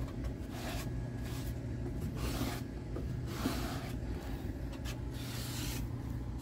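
Cloth towel rubbed across a hardwood floor under a bare foot, making a series of short swishing strokes, a little over one a second, over a steady low hum.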